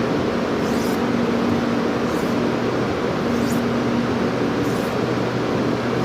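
Light finishing strokes of a steel knife blade across a diamond sharpening stone, a faint short scrape about every second and a quarter. A steady humming background noise, louder than the strokes, runs under them.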